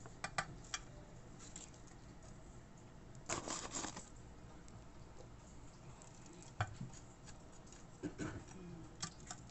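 Spoon tapping and scraping in a dish of crushed graham crumbs: a few light clicks, a short rustling scrape a little after three seconds in, and a sharp tap about halfway through.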